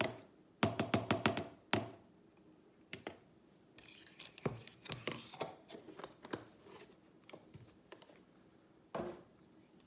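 A metal spoon knocked five or six times in quick succession against a plastic container, then scattered clicks, rustling and a last knock as containers are handled on a kitchen counter.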